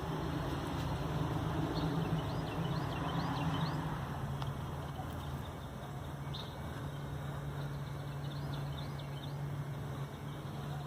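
A steady low hum or drone hanging in the air, the kind of sound reported as a strange sound in the sky, with no clear source. Twice, a quick run of small bird chirps sounds above it.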